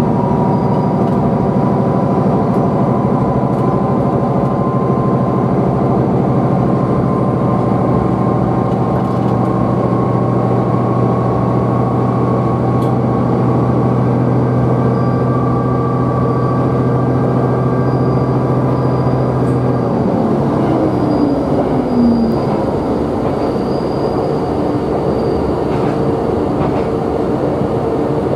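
Diesel railcar running between stations, heard from inside the passenger cabin: a steady engine drone with a higher whine. About two-thirds of the way through the low drone drops out, a tone glides downward, and the engine note settles into a different pitch.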